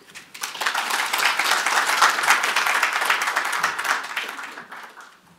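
Audience applauding: many hands clapping that build up quickly and die away near the end.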